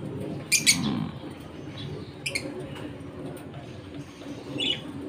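Caged African lovebirds and parakeets giving a few short, sharp chirps: a pair about half a second in, one a little after two seconds, and another near the end, over a low steady background hum.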